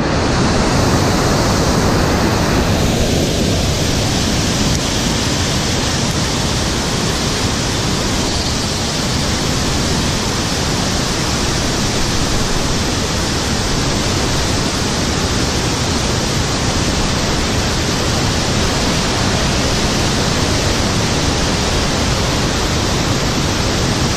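Loud, steady rush of river water flowing over rapids, an even unbroken roar with no distinct events.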